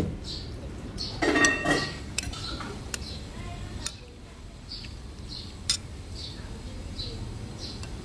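Metal spoon clinking against a ceramic bowl of rice porridge: several sharp, separate clinks.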